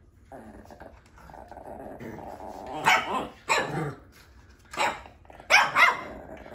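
Small dogs growling low for a couple of seconds, then barking sharply about five times in the second half.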